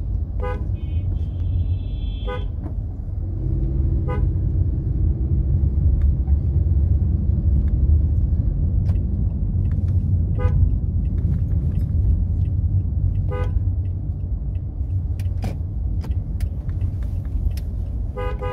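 Street traffic heard from a moving vehicle: a steady low rumble of motion and road, broken every few seconds by short vehicle-horn toots, with a brief high-pitched ringing about a second in.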